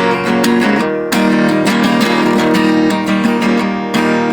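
Guitar music with chords strummed in a steady rhythm, about three strokes a second, and no singing.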